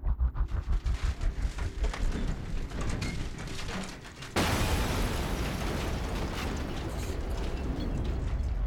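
Film sound effects of clattering, rumbling machinery, which about four and a half seconds in break into a sudden, loud, sustained blast of noise with crackles running through it.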